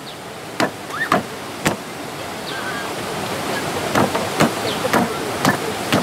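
Footsteps knocking on the wooden planks of a suspension bridge, a few irregular sharp knocks, over the steady rush of river water below that grows slowly louder.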